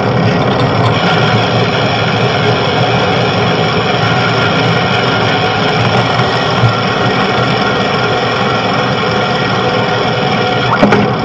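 Steady, loud road and traffic noise heard from a moving bicycle, with vehicle engines running in the mix.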